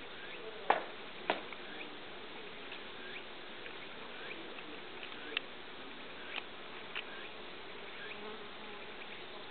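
Faint buzzing of a Korean native honey bee working a zinnia flower. A few sharp clicks cut through it, the loudest two about a second in and weaker ones later.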